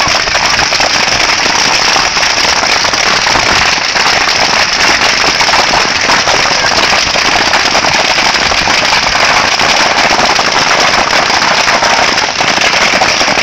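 Large bamboo bonfire tower burning: continuous, dense crackling with many sharp pops of bamboo bursting in the flames.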